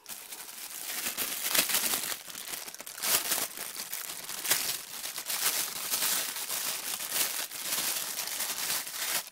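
Thin clear plastic wrapping crinkling and rustling as it is pulled open by hand, with many sharp crackles throughout.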